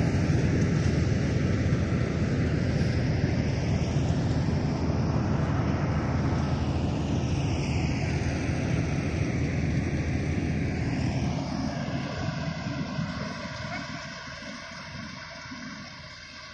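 Satnam self-propelled combine harvester running steadily, its engine and threshing machinery making a deep, continuous drone, which grows fainter over the last five seconds or so.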